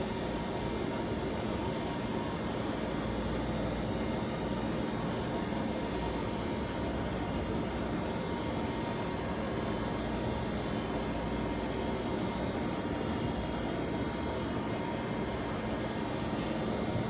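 Mori Seiki NLX-2500 CNC lathe running under power: a steady mechanical hum with a few constant tones over an even wash of noise.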